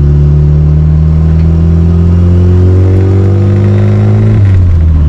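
Turbocharged Honda B-series four-cylinder engine running through a straight-pipe exhaust, its note climbing steadily as the car pulls, then dropping sharply about four and a half seconds in and running on steady.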